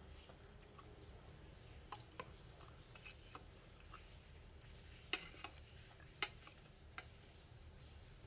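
Metal spoon clinking against a stainless steel pot while scooping stew: a string of light clinks starting about two seconds in, with two louder ones a little past the middle.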